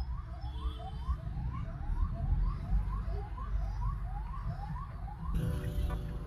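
Convoy escort vehicle's siren yelping in short rising sweeps, about three a second, heard from inside a car over low road rumble. Music comes in near the end.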